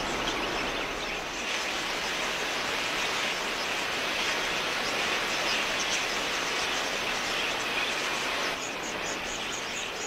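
Dense, steady din of a huge flock of wild budgerigars chattering in flight, an even hiss with no single call standing out. About a second and a half before the end the flock sound drops and crickets start chirping, about three chirps a second.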